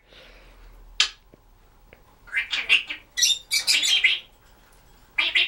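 African grey parrot making quick runs of short, high chirps and squeaks in two bursts, about two and three seconds in, after a single sharp click about a second in.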